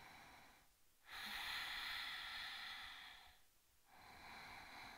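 Slow, deep Ujjayi breathing: a soft rushing through the throat, each breath lasting two to three seconds, with short pauses between. One breath fades out just before a second in, a louder one follows, and another begins near the end.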